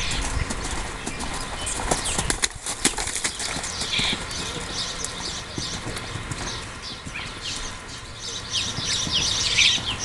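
Hoofbeats of a cremello Quarter Horse colt loping on arena dirt, an irregular run of soft knocks. High short chirps sound behind them, thickest near the end.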